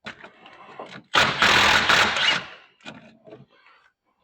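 Impact wrench run in one burst of about a second, spinning loose the rocker arm nuts on a small-block Chevy head. Clicks and tool handling come before and after the burst.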